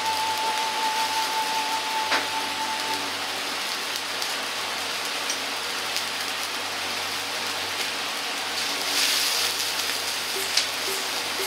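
Water heating in a carbon-steel wok, with a steady crackling hiss of small bubbles. Nine or ten seconds in, liquid miso ramen soup base is poured in and the hiss brightens briefly.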